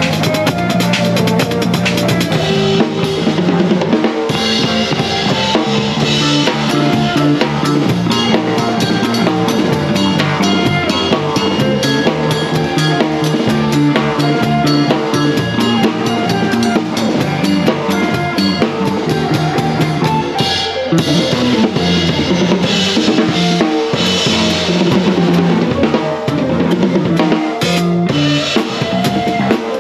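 Acoustic drum kit played close up in a busy, steady groove: stick strokes on the snare and cymbals over the kick drum, with a band's pitched instruments underneath.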